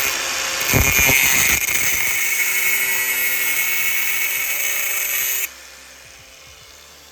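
Power tool grinding into a steel spanner: a loud, steady, high hiss with a whine. It stops suddenly about five and a half seconds in.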